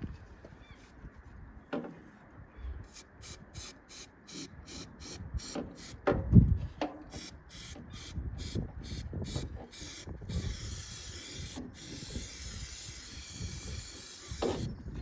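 Aerosol can of zinc primer: rhythmic shaking, about three strokes a second, with a knock about six seconds in, then a steady spray hiss of about four seconds, broken once briefly.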